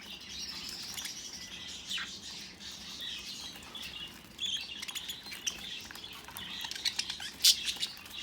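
Budgerigars chattering and warbling in a continuous stream of chirps. Several sharp clicks break in near the end.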